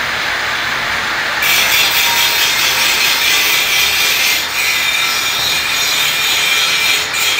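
Angle grinder grinding the weld joints of a steel window grill frame: a steady, loud hiss of the disc on the metal that grows louder and harsher about one and a half seconds in, with brief dips around halfway and near the end.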